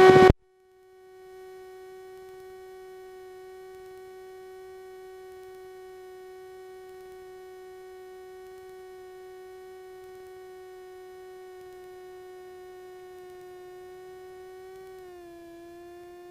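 A steady humming tone with a stack of overtones, rising in over about a second, then dropping slightly in pitch near the end and starting to glide down.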